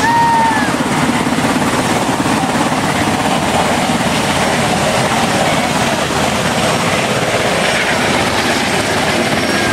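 Navy helicopter lifting off and climbing away, its rotor chop and turbine noise loud and steady.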